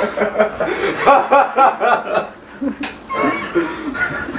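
People talking and laughing excitedly, with high-pitched voices in the second half.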